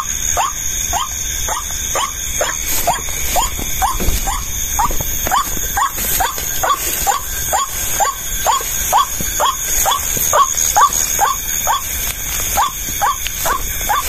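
White-breasted waterhen (ruak-ruak) calls: short squealing notes repeated evenly, about two to three a second, without a break. A steady high-pitched whine runs behind them.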